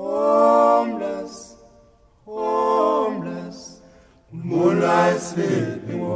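A group of voices singing unaccompanied in three long held phrases, each sliding down in pitch at its end.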